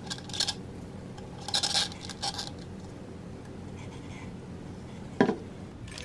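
Wine cork being twisted and pushed into the hole of a clear plastic terrarium globe: a few short squeaky rubbing scrapes in the first couple of seconds. Then a single sharp knock a little after five seconds in, as the plastic globe is set down on a wooden table.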